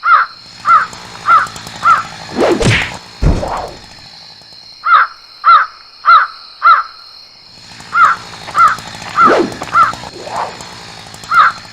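Crow cawing in runs of four short caws about half a second apart, repeating through. About three seconds in, a whoosh ends in a low thud.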